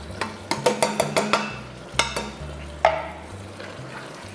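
Wooden spoon stirring sliced mushrooms into sautéing ground pork in an enamelled cast-iron pot, with light sizzling. There is a quick run of knocks of the spoon against the pot in the first second or so, and a few more strikes later, one with a brief ring.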